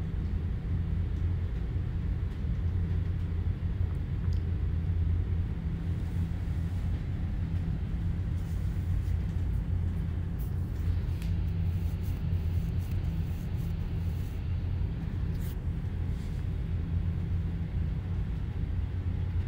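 Steady low hum of a ship's engine-room machinery running. Over it come a few light clicks and clinks from about six to sixteen seconds in, as the chain-hung exhaust valve housing is handled.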